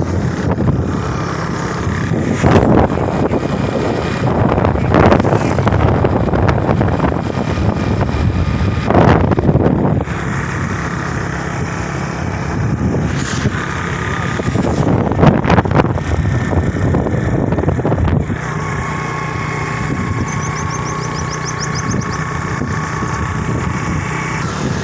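Motorcycle engine running steadily while riding along a road, with wind rushing over the microphone and swelling loudly several times.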